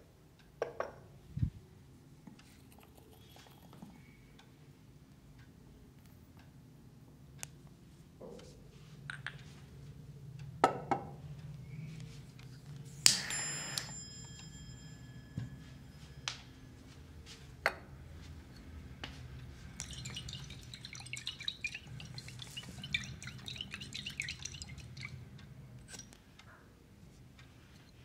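Glass and ceramic items clinking and tapping as they are set down on a table, with a short scraping burst and then a ringing tone about halfway through. Near the end comes a few seconds of soft, fine crackling rustle.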